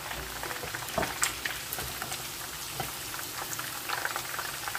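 Flour-coated turkey wings deep-frying in hot oil in a pan, twenty minutes into the first fry: steady bubbling and crackling, with a couple of sharper pops about a second in.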